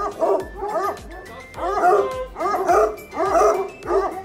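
A pack of tricolour Anglo-French hounds baying and yelping together, many voices overlapping. The bays rise and fall in pitch and come in loud waves about twice a second.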